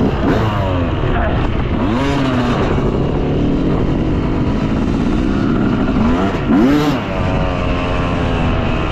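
Yamaha YZ250 two-stroke motocross bike being ridden, its engine revving up and dropping back again and again, with sharp blips of the throttle about two seconds in and again near seven seconds.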